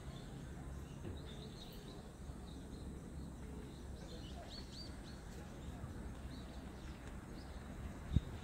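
Outdoor ambience: a low, steady background rumble with faint short bird chirps now and then, and a single sharp knock near the end.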